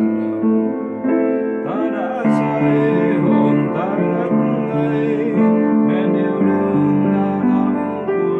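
Digital piano playing slow, sustained chords, with a man's singing voice wavering over it for a few seconds around the middle.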